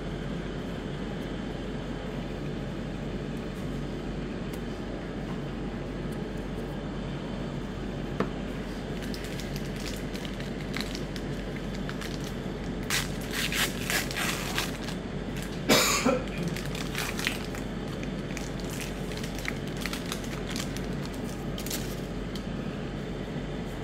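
Crinkling and crackling of a trading-card booster pack wrapper being handled and opened, in scattered bursts from about nine seconds in, loudest about sixteen seconds in, over a steady room hum.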